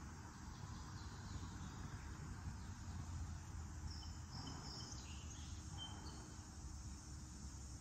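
Faint outdoor ambience: a steady low rumble with a few short, high chirps around the middle.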